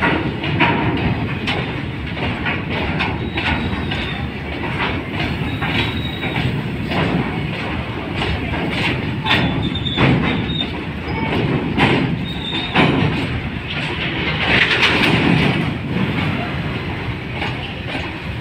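Freight train of open-top wagons rolling past close by: a steady rumble with the clickety-clack of wheels over rail joints and a few brief, high wheel squeals.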